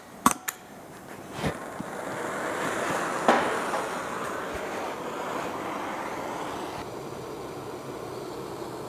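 Steady rushing noise, with a few sharp clicks at the start and single knocks about one and a half and three seconds in.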